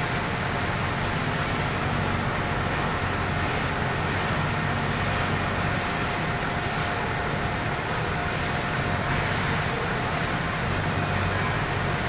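Steady mechanical running noise with a faint constant tone, unchanging throughout.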